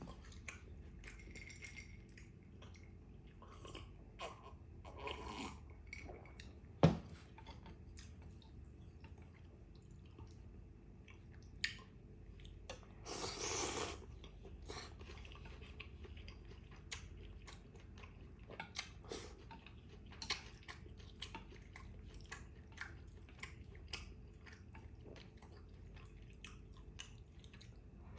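Close-miked chewing of a rice-vermicelli and beef salad (bún trộn bò), with scattered small clicks and wet mouth sounds, and a sharp click about seven seconds in.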